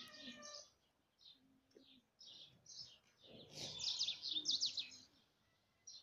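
Small birds chirping in short repeated bursts, with a brief lower call right at the start and a louder, noisier burst of sound from about three and a half to five seconds in.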